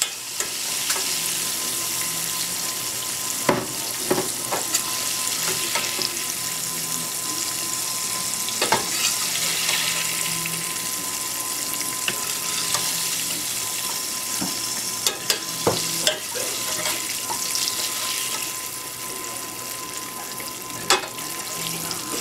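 Breaded catfish fillets frying in hot oil in a steel skillet, with a steady sizzle. Now and then a metal slotted spoon clinks against the pan as pieces are lifted out.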